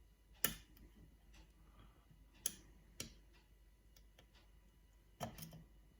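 Small sharp clicks of a dimple pick and tension wrench working the pins of a dimple lock full of spool pins, under light tension. There are single clicks about half a second in and around two and a half and three seconds, a quick pair near the end, and fainter ticks in between.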